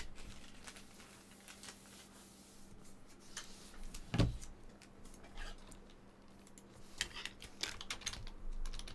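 Light, scattered clicking of typing on a computer keyboard, with a single low thump about four seconds in and a faint steady hum underneath.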